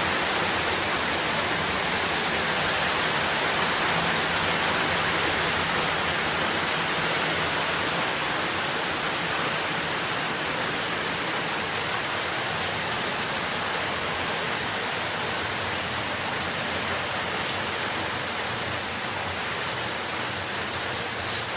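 Steady rainfall, a dense even hiss of rain with no single drops standing out, easing slightly in level toward the end.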